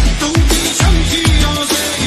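Background music with a steady electronic beat: a deep kick that drops in pitch about twice a second under a synth melody.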